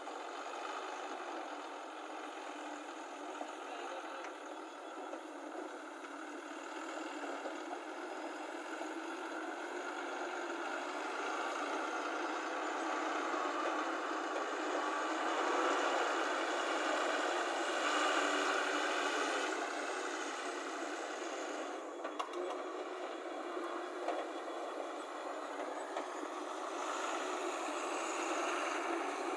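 Loaded diesel tipper truck driving away, its engine rising in loudness and pitch as it pulls off, then easing back about two-thirds through, with a sharp click at that point.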